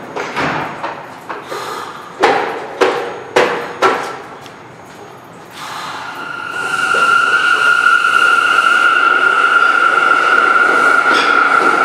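New York City subway C train at a station platform: a few sharp knocks about two to four seconds in, then about six seconds in the train starts moving with a steady high electric whine over running noise.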